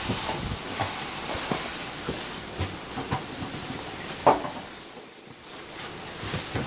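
Plastic protective sheeting rustling and crinkling as it is pulled off a flat-screen TV in its cardboard box, with one sharp crackle a little over four seconds in.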